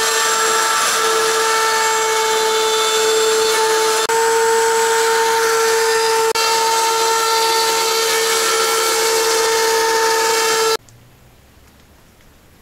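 Handheld wood router running steadily with a high whine while cutting a round-over on the edges of circular holes in plywood. The sound stops abruptly about eleven seconds in.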